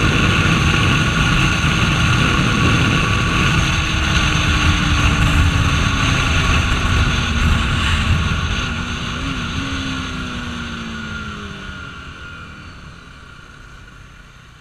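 KTM RC 390's single-cylinder engine and heavy wind rush while riding at speed. From about eight seconds in, the engine note slides down and the wind noise fades steadily as the bike slows.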